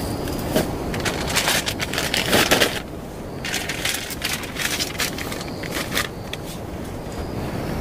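Plastic bag crinkling and rustling as it is handled, a run of sharp crackles that is loudest about two and a half seconds in, then sparser crackling.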